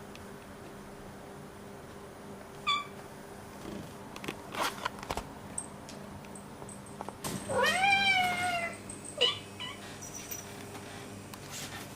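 Cats meowing for food: a short high mew a few seconds in, then one long meow that rises and falls past the middle, and a brief chirp just after it. A few light knocks come between the calls.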